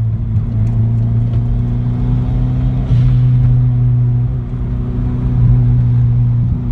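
Car engine and exhaust droning steadily at highway cruising speed, heard from inside the cabin, with a slight rise in loudness about three seconds in.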